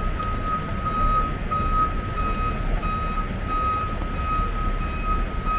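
A truck's reversing alarm beeping steadily, one unchanging pitch repeated at an even pace, over the low rumble of street traffic.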